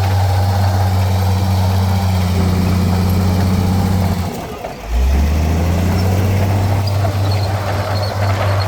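Heavy diesel engine of earthmoving machinery running steadily with a deep hum. About halfway through it dips briefly and then picks up again.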